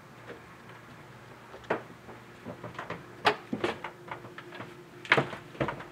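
Slow, uneven footsteps with small knocks and clicks, the sharpest about a third of the way in and again about a second before the end.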